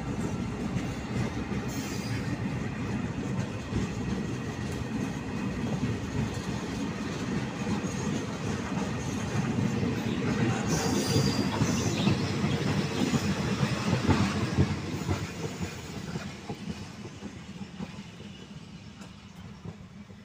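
Freight train of tank wagons rolling past, its wheels running on the rails in a steady rumble that grows fainter over the last few seconds as the tail coach passes and the train moves off.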